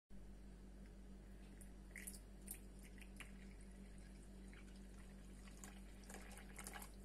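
A hot drink poured in a thin stream into a small ceramic cup: a faint trickle with scattered drips and splashes, over a steady low hum.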